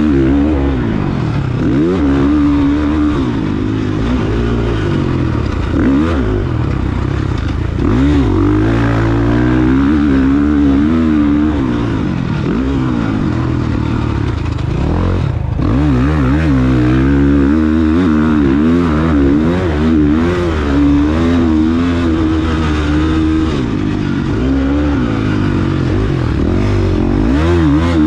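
KTM motocross bike's engine revving up and down with the throttle as it is ridden around a dirt track, heard from on board the bike. The note drops briefly about halfway.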